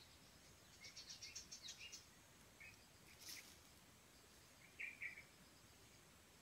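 Faint bird calls over a quiet hiss: a quick run of high chirping notes about a second in, a few scattered chirps, a sharp click near the middle, and a louder double chirp about five seconds in.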